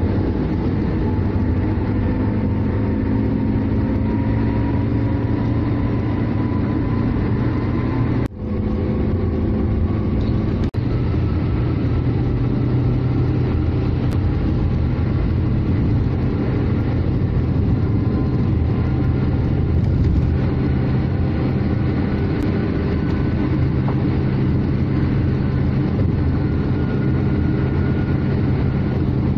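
Car cabin noise at motorway speed: a steady engine and tyre rumble, with an engine tone slowly rising in pitch over the first several seconds. The sound cuts out very briefly twice, at about eight and eleven seconds in.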